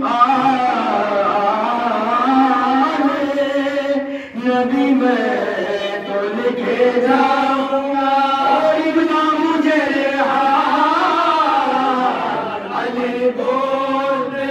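Men's voices chanting a Shia nauha in Urdu in a slow, held melodic line, with no instruments.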